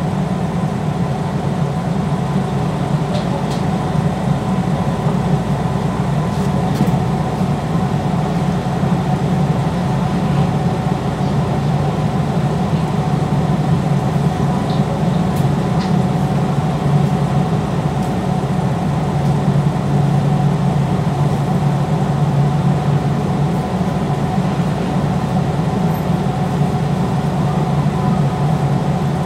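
Steady low hum of a JR West 221 series electric train standing before departure, with its onboard equipment running, heard inside the car. There is no change in pitch and no sound of it pulling away.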